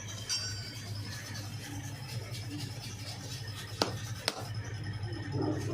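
A wood lathe running with a steady motor hum while a turning tool scrapes and rubs against the spinning wood. Two sharp clicks come about four seconds in.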